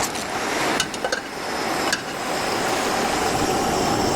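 Metal clinks of utensils against a cooking pot, a few times in the first two seconds, over a steady rushing hiss.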